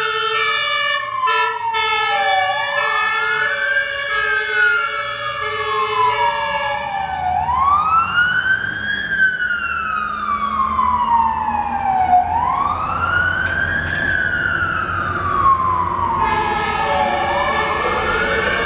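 Fire engine siren on an emergency run. It wails, rising quickly and falling slowly about every five seconds. A faster alternating two-tone sounds over the wail in the first several seconds and again near the end, with the truck's engine rumbling underneath as it passes.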